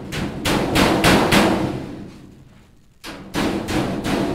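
Hammer striking a galvanized sheet-metal rectangular duct, folding the tabs of a drive cleat over to lock two duct sections together. Quick blows at about four a second in two runs, the first dying away after about two seconds and the second starting about three seconds in.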